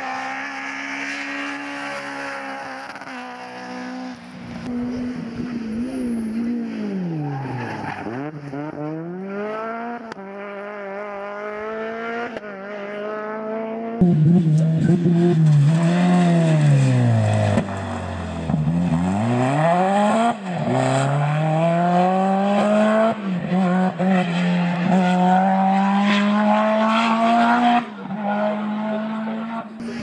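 Rally cars driven hard one after another on a tarmac stage. The engines rev high, the revs fall away sharply as the cars brake and shift down for corners, then climb again through the gears. The passes are loudest from about halfway through.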